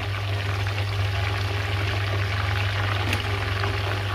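Chicken pieces deep-frying in hot oil in an iron karahi: a steady, even bubbling sizzle with fine crackle, over a steady low hum.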